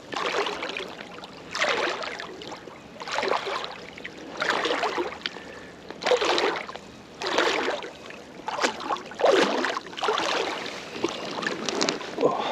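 Water sloshing and splashing around a float tube in regular surges, about one every one and a half seconds, as the angler kicks along with swim fins.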